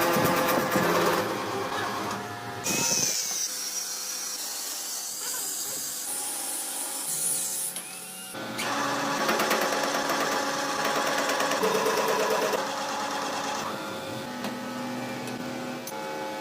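Machine-shop tool sounds: a lathe or power tool running and working metal, with a steady machine whine and cutting hiss. The sound changes abruptly several times.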